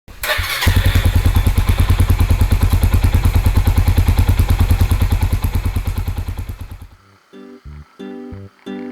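Suzuki GrassTracker's single-cylinder four-stroke engine starting and then idling with a fast, even beat, about a dozen firing pulses a second. It dies away about seven seconds in, and plucked acoustic guitar music begins.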